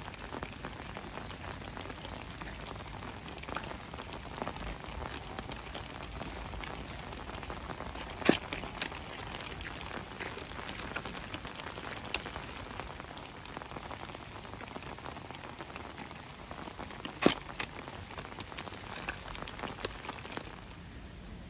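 Steady rain falling, with two sharp clicks about eight and seventeen seconds in, each followed quickly by a smaller click.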